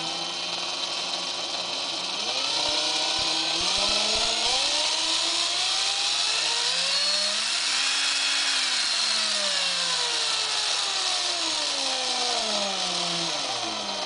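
Straus cordless drill's motor and gearbox running on its variable-speed trigger. It whines steadily at low speed, rises smoothly to a peak about eight seconds in, then falls back and stops near the end. The speed now follows the trigger, a test that the trigger switch works after its resistor contact tracks were cleaned of worn-off deposits.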